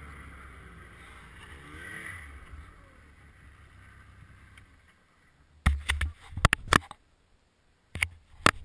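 Yamaha RS Rage snowmobile's four-stroke triple running low and fading away over the first five seconds. Then come sharp knocks and clicks, a loud cluster about six seconds in and a few more near the end.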